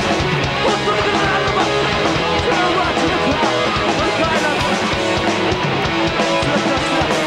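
Hardcore band playing live: electric guitar, bass guitar and drum kit at a steady, loud level.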